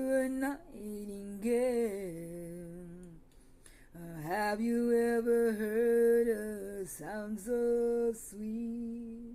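A woman singing solo without accompaniment, holding long notes with vibrato in four or five phrases and sliding between pitches.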